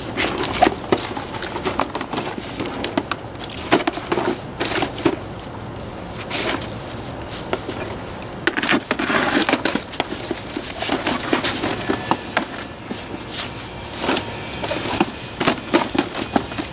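A dog chewing and tearing at a cardboard box, the cardboard crackling and crunching in irregular bursts with sharp clicks between them.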